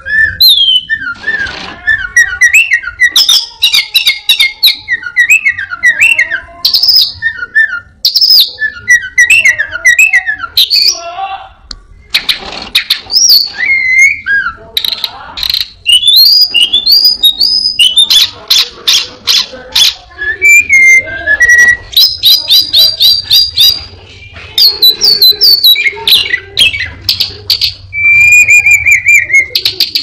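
A caged anis binbin thrush sings a long, fast, varied song of whistled notes, slurred phrases and rapid trills, with short breaks. The song is full of mimicked calls of other birds.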